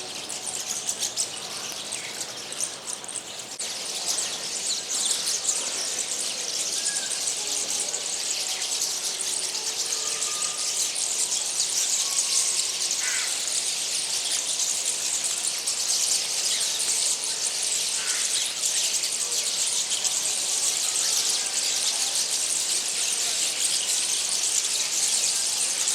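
A flock of small birds chattering and twittering together in a continuous dense chorus that grows louder about four seconds in.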